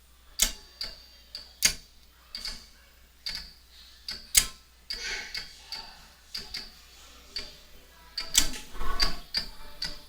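Ameritec AM-48 transmission test set clicking and popping irregularly, about two or three sharp clicks a second with a denser cluster near the end, as it is switched on and fails to stay on: a power-up fault that may lie in its input power supply.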